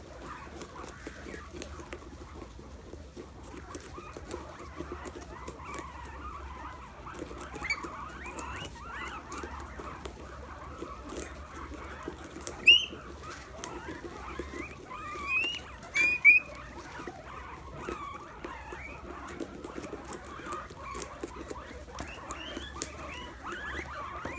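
A group of guinea pigs gnawing and munching on a whole pumpkin, a steady patter of small crunching clicks. A running chorus of soft rising squeaks goes over it, with a few louder squeaks around the middle.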